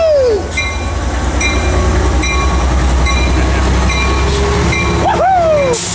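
Metrolink F59PH diesel locomotive departing: its engine throbbing low and steady while its bell rings in repeated strokes about three times a second.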